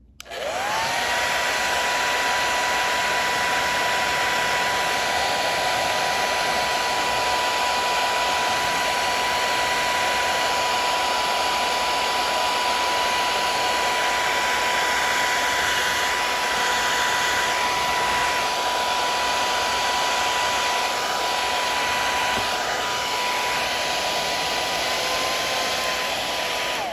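Heat gun switched on, its fan spinning up into a steady blowing hiss with a high steady whine, then switched off near the end as the whine drops away. It is heating the battery's plastic wrap to shrink it back on.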